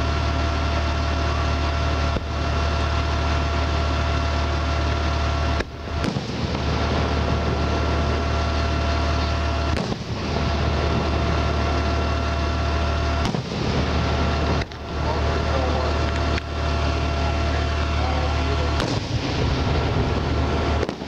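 Aerial firework shells bursting about seven times, each report briefly ducking the recording level, over a steady loud mechanical drone with a constant high whine and deep hum.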